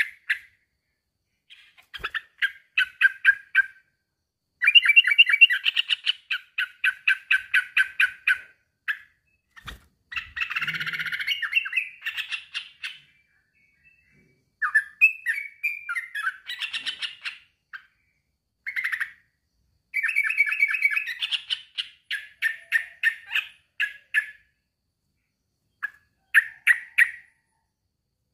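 Male yellow-vented bulbul (trucukan) singing a challenge call to a rival: bursts of fast repeated notes, about five a second, in phrases a few seconds long with short pauses, and a harsher chattering burst about ten seconds in.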